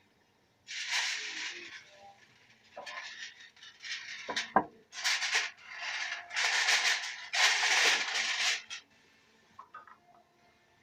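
Aluminium foil being pulled off a roll and handled, rustling and crinkling in a run of noisy bursts that is loudest near the end, with one sharp tick about four and a half seconds in.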